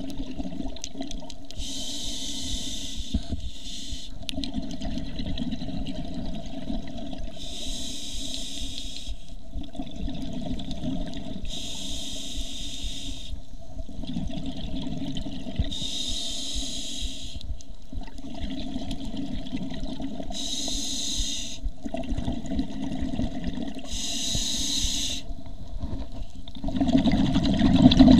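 Underwater sound of a scuba diver breathing through a regulator: a hissing rush of exhaled bubbles about every four seconds, six times, over a steady low underwater rumble. The sound grows louder near the end.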